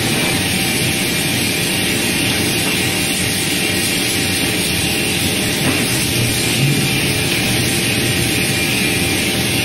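Plywood press paving line running: a steady, loud machine noise with a low hum and no distinct strikes.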